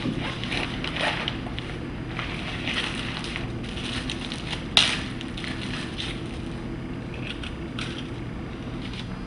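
Rustling and crinkling of a snack being unpacked: a lunch-bag zipper and a crackling plastic wrapper handled by hand, with a sharp click about five seconds in, over a steady low hum.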